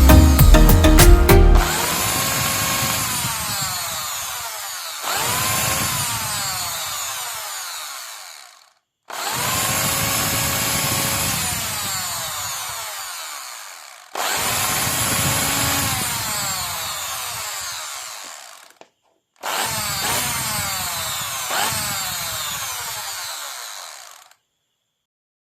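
Electric drill run in five short bursts: each time the motor whines up to speed, then the whine falls away as it coasts down over a few seconds. This is a test run of the drill after its armature repair.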